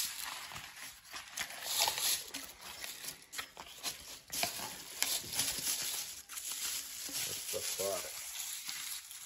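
Bubble wrap and plastic packaging crinkling, with cardboard box flaps rustling, as a headlight is unwrapped by hand: irregular crackles and rustles.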